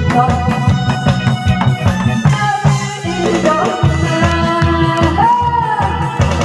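Loud, up-tempo trot medley music with a fast, steady drum beat and a gliding melody line, as played for a pumba drum-and-janggu performance.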